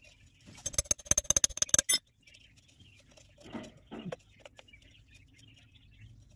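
Rapid metallic clicking and rattling for about a second and a half, which stops abruptly: the rusty rotor of an old hand rotary pump being handled, its sliding vane knocking loosely in its slot.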